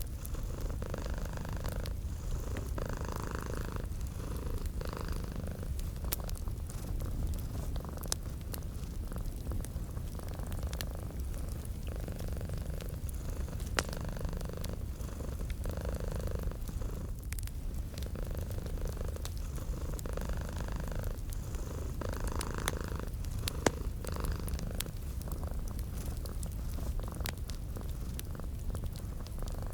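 A cat purring steadily, swelling and fading with each breath about every two seconds. Fireplace crackles run under it as scattered small pops, with a couple of sharper ones.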